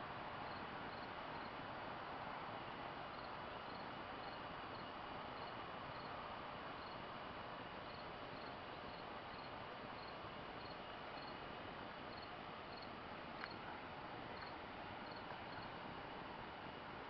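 Low steady background hiss with an insect chirping in a regular, high-pitched pattern. One faint click about thirteen seconds in.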